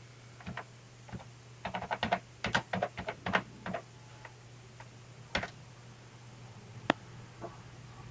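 A quick run of about a dozen light clicks and taps, then three single clicks spaced out later, over a steady low hum.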